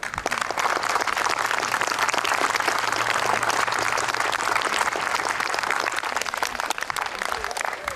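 A small audience applauding: a dense patter of hand clapping that starts suddenly and stays steady, thinning slightly near the end.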